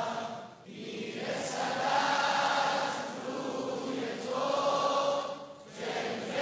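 Large crowd of young men singing a chant in unison, in long held phrases, breaking briefly about half a second in and again near the end.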